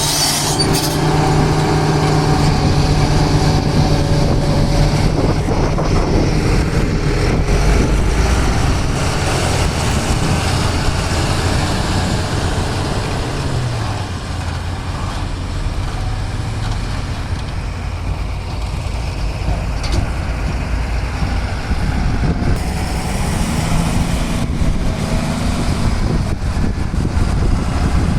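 Heavy diesel engines of a JCB 3DX backhoe loader and dump trucks running steadily while loading, the engine note dropping about halfway through and rising and falling again near the end.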